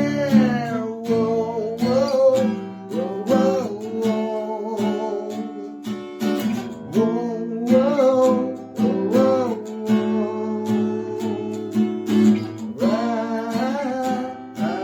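Background music: a strummed acoustic guitar with a wordless sung melody.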